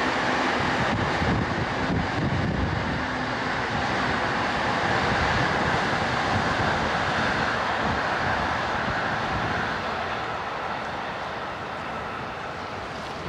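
Steady, loud rushing noise of a passing vehicle, easing off over the last few seconds.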